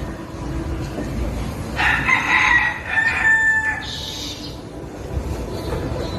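A chicken gives one drawn-out call about two seconds in, lasting roughly a second and a half, over a low background rumble.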